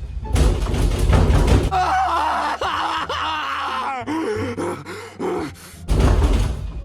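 A person moaning and groaning loudly in long, gliding, drawn-out moans, staged to sound like sex, over music with a heavy bass. A loud rushing, noisy burst comes before the moans and another near the end.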